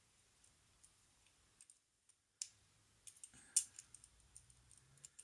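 Faint, scattered metal clicks of a lock pick and tension tool working inside a Squire 660 four-lever padlock, with a sharper click about two and a half seconds in and a cluster of clicks around three to four seconds.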